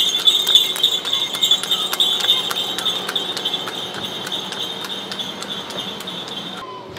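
Horse-drawn cart passing on a street: irregular sharp hoof clicks on the road over a steady high-pitched shrill ringing, which cuts off abruptly near the end.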